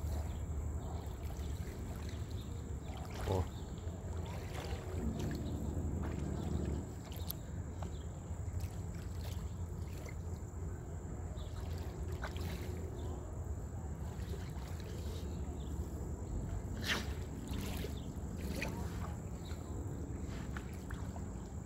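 River water lapping and sloshing at the shoreline in small waves, with scattered soft splashes over a steady low rumble.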